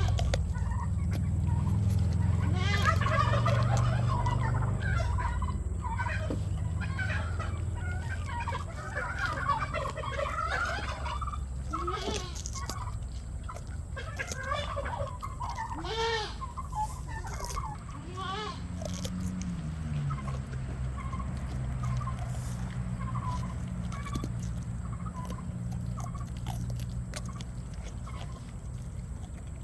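Goat crunching carrots, with farm fowl calling in bursts of rapid warbling calls through the first two-thirds, over a steady low hum.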